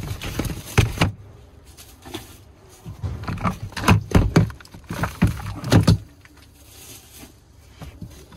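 Black plastic trash bags rustling and packaged food and plastic containers knocking together as a hand rummages through a waste bin. The handling comes in irregular bursts, busiest about a second in and again in the middle, with quieter pauses between.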